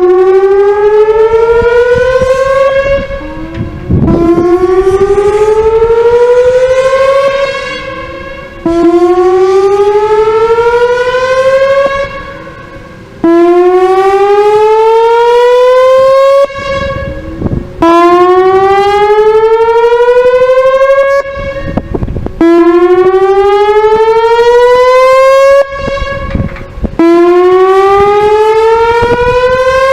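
Whelen Vortex R4 tornado siren sounding during a test: a loud, rising tone that climbs, levels off and drops back, repeating about every four and a half seconds, its loudness swelling and fading in step.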